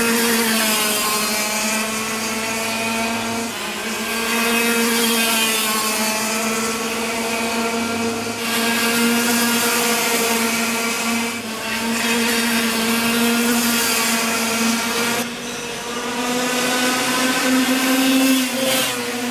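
Racing go-kart engines running at high revs, a high-pitched buzzing engine note that rises and falls as the karts accelerate and lift off. The sound changes abruptly every few seconds, at about 3.5, 8, 11 and 15 seconds in.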